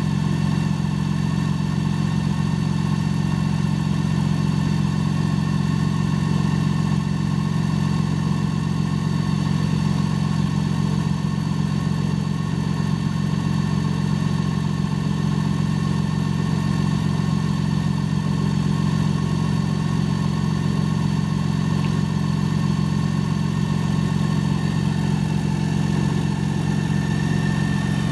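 Campagna T-Rex 16SP's BMW 1.6-litre inline-six idling steadily, an even drone with no revving.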